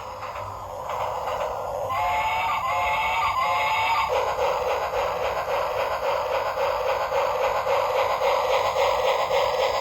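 Electronic sound chip of a battery-operated toy train playing tinny electronic sounds. Three short warbling tones give way, about four seconds in, to a rapid, even pulsing that carries on.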